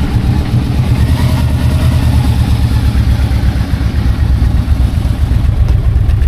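Yamaha Royal Star Venture's V4 engine idling steadily through its stock exhaust mufflers, a low, even pulsing exhaust note.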